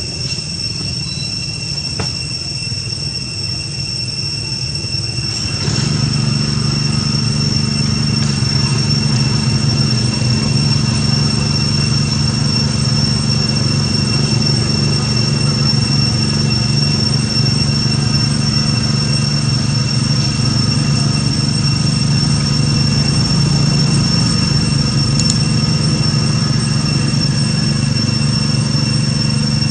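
A steady low mechanical hum that comes in and grows louder about five seconds in, over a steady high whine.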